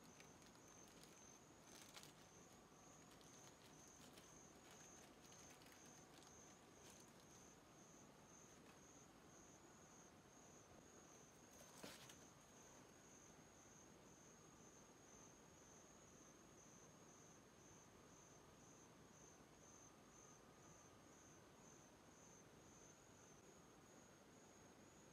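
Near silence with a faint cricket chirping steadily in a high, evenly pulsed trill. A few soft handling clicks early on and one sharper tap near the middle.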